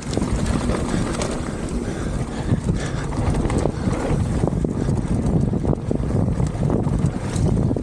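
Wind buffeting the camera microphone over the continuous rumble of a mountain bike's tyres rolling fast on a loose, dusty gravel trail, with frequent small knocks and clicks from the bike and stones.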